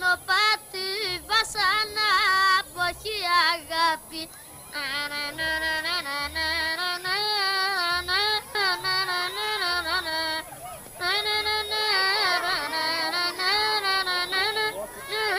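A high voice singing an ornamented, wavering melody in long phrases, pausing briefly twice, over faint low beats.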